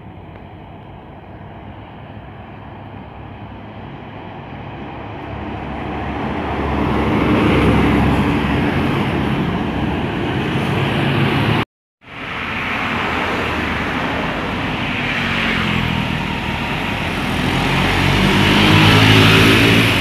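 Big intercity buses passing close on the road, engine and tyre noise building to its loudest about eight seconds in. After a brief cut, the noise builds again toward the end.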